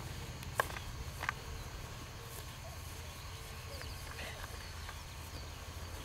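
Steady low wind rumble on the microphone, with two short sharp clicks about a second in and a few faint high chirps.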